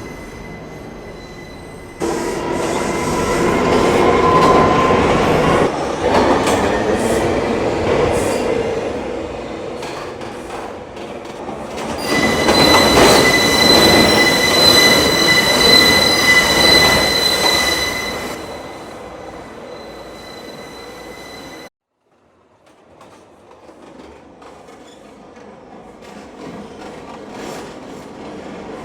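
An R179 New York City subway train running at speed, with loud rumble and rattle and a steady high-pitched wheel squeal that swells and fades twice. About three-quarters of the way through, the sound cuts off abruptly, then quieter running noise slowly builds again.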